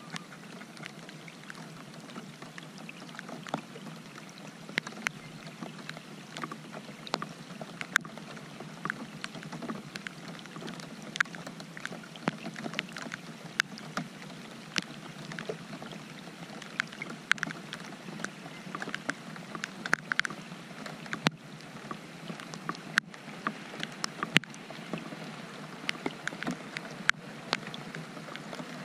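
Rain falling on and around a kayak: a steady hiss with irregular sharp ticks of drops landing close by.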